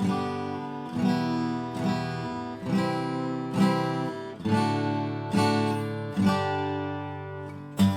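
Donner DAG1S acoustic guitar being strummed, a new chord struck about once a second and left ringing.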